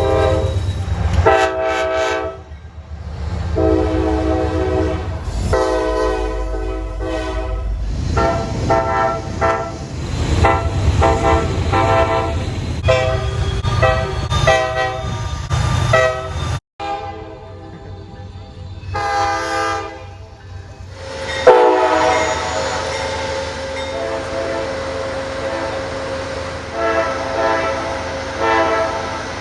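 Train horns sounding a string of long and short multi-note blasts, the first ones over the low rumble of a passing train. The sound cuts off abruptly about 17 s in, another horn blows briefly, and a longer held horn starts about 21 s in.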